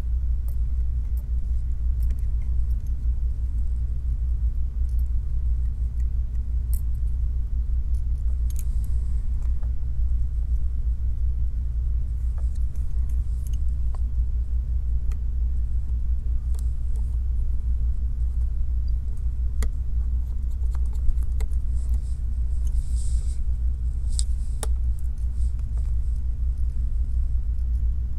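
A steady low rumble, with faint scattered small clicks and light scrapes of a precision screwdriver and tiny screws as bracket screws are driven back into an iPhone 12.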